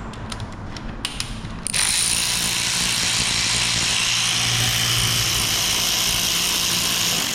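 A power ratchet running steadily for about five and a half seconds, backing out a fastener, after a few light clicks of tool handling.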